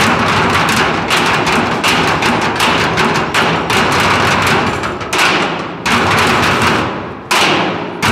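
Percussion ensemble beating steel oil drums and plastic barrels with drumsticks in a fast, dense rhythm. From about five seconds in it breaks into a few separate unison strikes, each left to ring out and die away.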